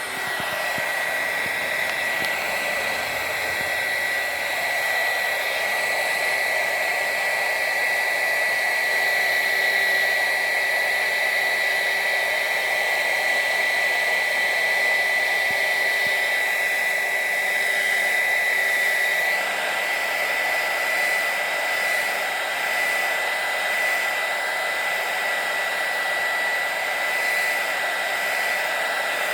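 Electric heat gun running steadily, blowing hot air to cure fresh wrinkle paint, a rush of air with a steady high whine. It gets slightly quieter about two-thirds of the way through.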